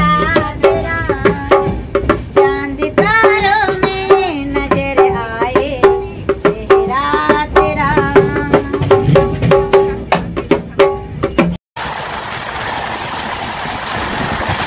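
A woman singing a folk song to a hand drum beaten in quick strokes. About twelve seconds in it cuts suddenly to the steady rushing noise of a passing train and wind.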